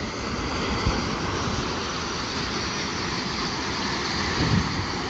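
Steady rushing roar of water and gas blasting out of a bore well under pressure, an eruption set off by deep drilling.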